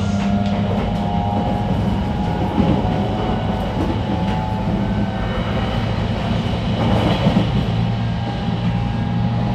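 Running sound heard inside a JR Kyushu 813 series 1100-subseries electric multiple unit motor car: steady traction-motor and inverter whine over the rumble of wheels on rail, with brief louder rumbles about two and a half seconds in and again around seven seconds.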